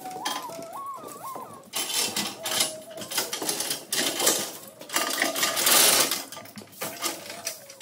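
Steel chain rattling and clinking in quick, irregular bursts as it is pulled and wrapped around a forklift mast, busiest about two-thirds of the way through. A wavering, whistle-like tone sounds over it in the first second or so.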